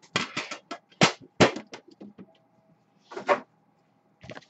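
A cardboard trading-card box being handled on a tabletop: a quick, irregular run of taps, knocks and scrapes in the first two seconds, and another brief cluster about three seconds in.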